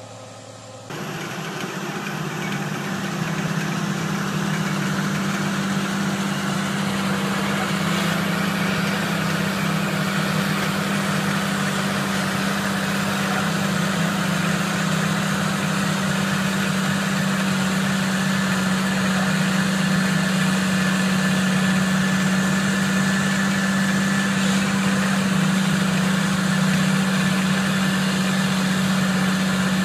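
A large farm tractor's diesel engine runs steadily under load while it pulls a land-levelling scraper through the soil. It is a strong, steady low drone that comes in about a second in and grows a little louder in the second half.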